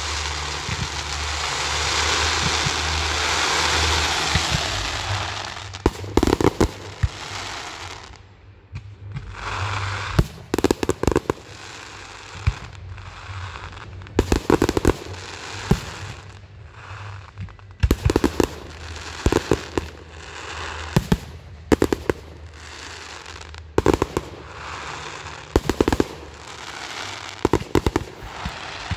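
Fireworks display: a dense, continuous hiss and crackle for about the first six seconds, then sharp shell bursts going off in pairs or small clusters every two seconds or so.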